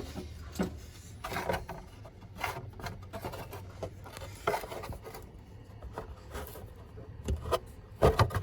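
Scattered knocks, rubs and scrapes of hands and tools working at the oil drain plug and drain pan under the car, with a cluster of louder knocks near the end, over a steady low hum.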